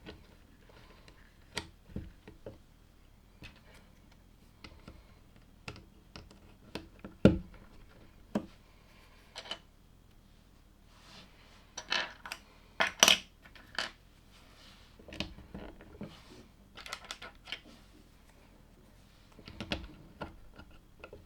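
LEGO plastic pieces being handled and pressed together: irregular small clicks and rattles, with a sharper click about seven seconds in and a quick run of clicks around twelve to thirteen seconds.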